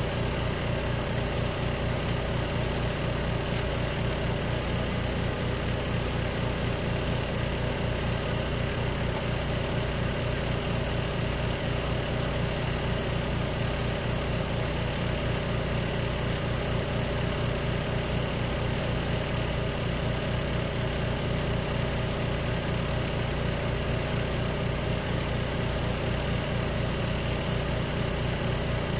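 Compact RV washing machine motor running steadily, a constant hum with a fast low throb, near the end of its cycle.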